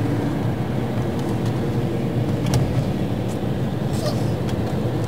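Steady engine and road noise heard from inside a moving road vehicle, with a few faint clicks in the second half.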